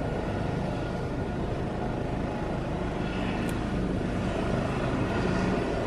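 Helicopter coming in to land: a steady rumble of rotor and engine.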